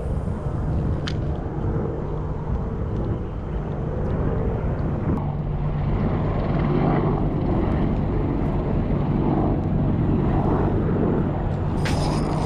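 A steady, low motor drone that grows louder about halfway through, with a few sharp clicks near the end.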